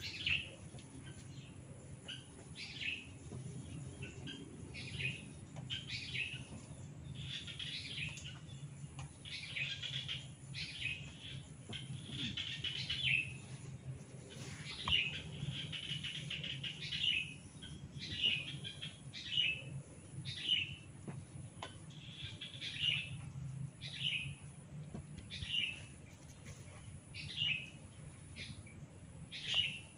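Hair crackling as it is gripped and tugged at the roots in a hair-cracking head massage: a short crackle about every second, some drawn out longer, over a low steady hum.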